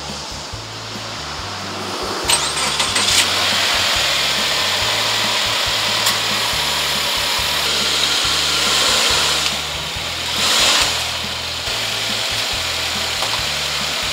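Background music with a stepping bass line, over a steady rushing noise that grows louder about two seconds in and swells briefly near the end.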